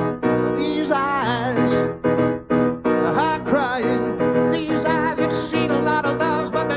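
Live keyboard played with a piano sound, chords re-struck about twice a second, with a man's voice singing long, wavering notes over them.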